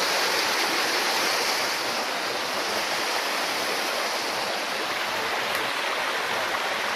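A small rocky creek running over stones and little cascades: a steady rush of water, a little louder in the first two seconds.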